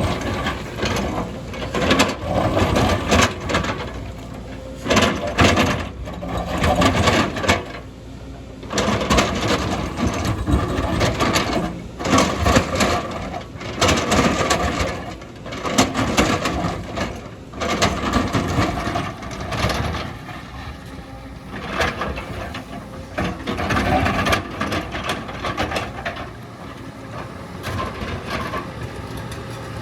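Excavator at work, its engine running under load in uneven surges, with irregular scraping and knocking as the bucket works through earth and rock.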